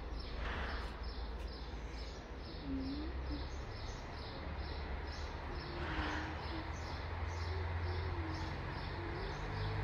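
High-pitched chirping repeated evenly, about three times a second, over a low rumble, with two brief soft rustles about half a second and six seconds in.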